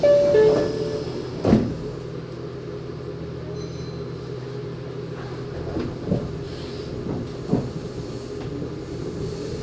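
Meitetsu 6000 series resistance-control electric train standing with a steady low hum and a few short clunks. At the very end its traction motors start a rising whine as the train begins to pull away.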